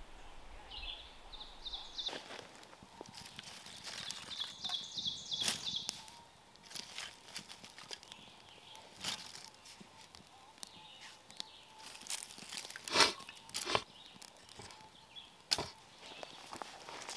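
Dry leaves and sticks rustling and crackling, with scattered sharp snaps, the loudest about thirteen seconds in. A bird chirps in quick short notes over the first six seconds.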